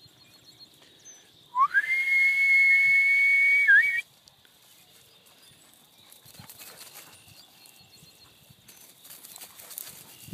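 One long whistle note that slides up at the start and is then held steady for about two seconds, with a brief upturn as it ends. Faint rustling follows.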